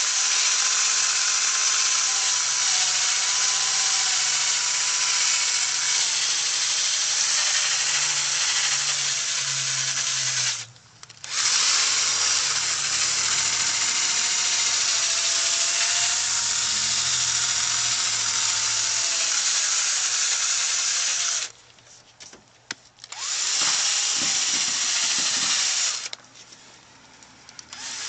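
Electric drill spinning an 800-grit sanding disc over a plastic headlight lens, a steady whine that wavers slightly in pitch. It cuts out briefly three times, once about a third of the way through and twice in the last third.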